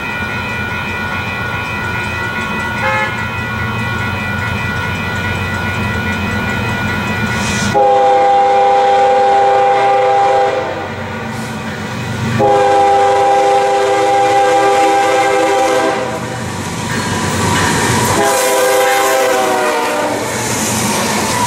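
A BNSF freight train's lead GE ES44DC locomotive approaching and sounding its horn in three blasts: two long ones of about three seconds, then a shorter one that drops in pitch as the locomotive passes. A steady rumble of the oncoming train runs under the horn, and the noise of the locomotives rushing by follows near the end.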